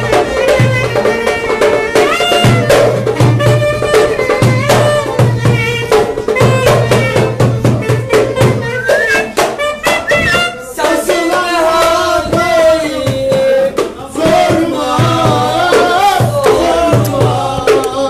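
Clarinet and violin playing a Turkish folk dance tune together, the melody bending and sliding between notes over a steady, pulsing low beat.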